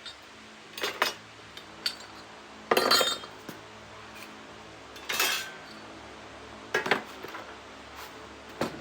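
Metal tools and small metal parts being handled and set down, with about six separate clinks and clanks, two of them, around three and five seconds in, longer rattling scrapes.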